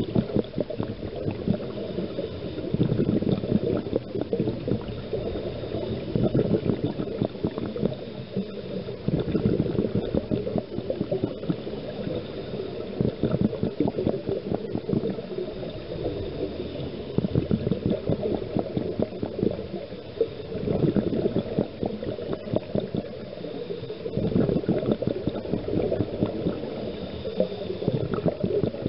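Scuba diver's exhaled air bubbling out of the regulator, heard underwater, in surges about every three to four seconds, with steady water noise between.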